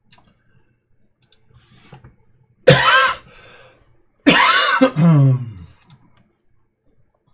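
A man coughs twice: a short, sharp cough about three seconds in, then a longer, heavier cough that runs into throat clearing just after four seconds. A few faint mouse clicks fall between.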